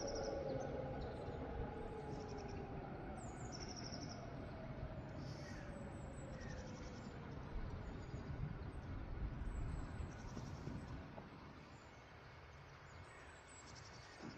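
Distant Helin HES warning sirens running down at the end of a test signal: their tones glide slowly down in pitch and fade out over the first several seconds. Small birds chirp throughout, over a low outdoor rumble.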